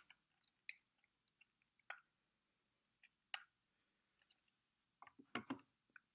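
Faint, scattered clicks and rattles of plastic LEGO pieces being handled and pressed together: a few single clicks, then a quick cluster of several near the end.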